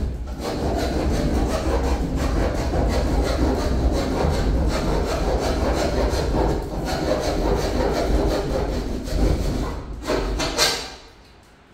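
Power saw cutting into the ceiling panel, a loud continuous rattling run that stops near the end.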